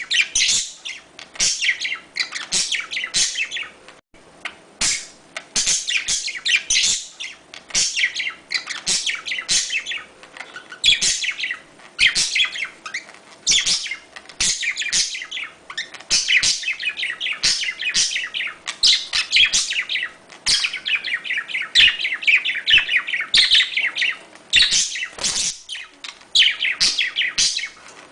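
Budgerigars chirping and chattering in rapid, busy bursts of high warbled notes, several a second, the courtship and mating calls of pet parakeets.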